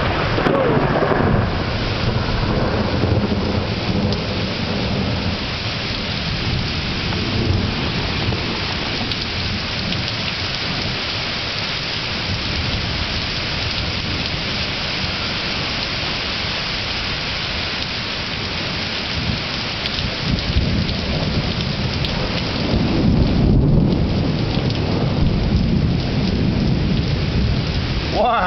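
Thunderstorm: heavy rain falling steadily, with rolling thunder rumbling underneath. A rumble fades near the start, and a louder roll of thunder builds about three-quarters of the way through.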